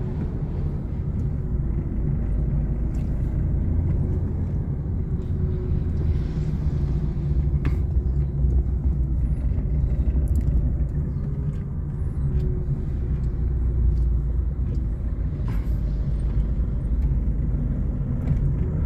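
Steady low rumble of a vehicle on the move, with a faint engine tone wavering above it.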